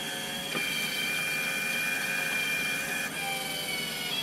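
Hercus PC200 CNC lathe's motor-driven eight-position tool turret rotating as it homes to tool one: a steady motor whine with high tones that shifts slightly about three seconds in.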